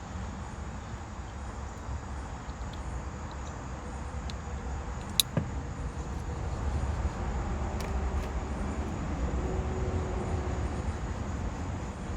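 Small clicks of plastic wiring connectors being plugged together, one sharp snap about five seconds in and a couple of fainter ones, over a steady low rumble.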